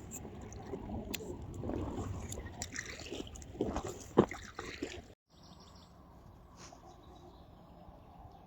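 Water sloshing around a small boat, with scattered knocks and clicks and one sharp knock about four seconds in. After an abrupt cut about five seconds in, a quieter steady outdoor hiss.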